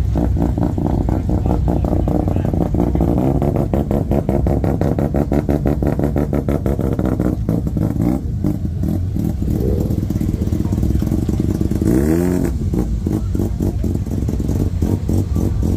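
Rotary-engined Mazda pickup idling with a choppy, lumpy beat as it creeps into a parking bay, with one short rev that rises and falls about twelve seconds in.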